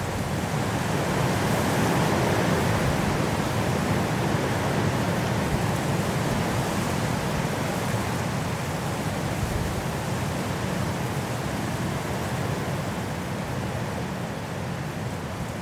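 Strong wind blowing through forest trees in a snowstorm, a steady rushing noise that swells about two seconds in and eases slightly toward the end.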